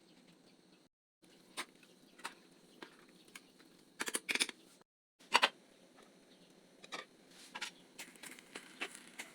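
Scattered small clicks and knocks of objects being handled over a faint hiss, with a quick cluster of clicks about four seconds in and a single louder knock about a second later. The sound drops out completely twice, briefly, at edit cuts.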